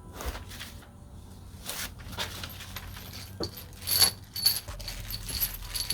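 Small metal suspension hardware clinking and rattling as it is handled, with a few sharper metallic clinks about four to five and a half seconds in.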